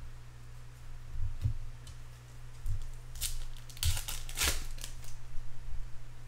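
Baseball card packs and cards being handled: a few short crinkling, rustling scrapes bunched together in the middle, over a steady low hum.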